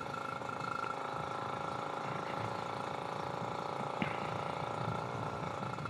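Kawasaki Ninja RR's 150 cc two-stroke single engine running at steady revs through its stock exhaust while the bike cruises, the pitch holding level. A brief click about four seconds in.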